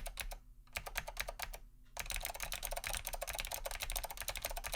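Typing on mechanical keyboards with clicky leaf-spring switches, a rapid patter of sharp, high key clicks. For the first two seconds it comes in short bursts with gaps. About two seconds in it turns into dense, continuous typing, probably the other keyboard of the comparison.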